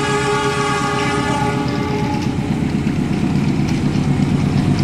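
Battery-powered toy electric train running on plastic track: its small motor buzzes and the wheels rattle steadily, getting louder near the end. Over it, the toy's electronic train-horn sound holds one tone and fades out about two seconds in.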